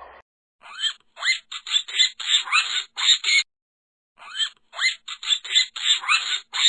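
Cartoon-style animal call sound effect: a rapid run of short, high chirping squawks with rising pitch, in two bursts about three seconds each, separated by a brief pause.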